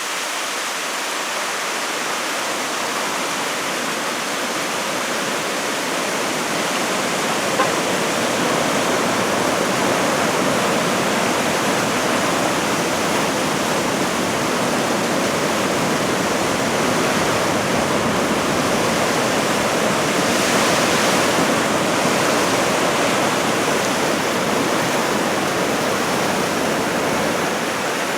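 Steady roar of ocean surf breaking on the shore, swelling a little about twenty seconds in, with one small click about eight seconds in.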